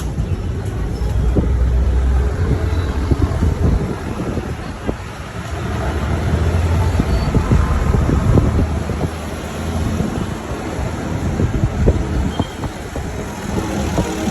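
Road vehicle driving in traffic: a steady low engine-and-road rumble, with frequent short knocks and rattles throughout.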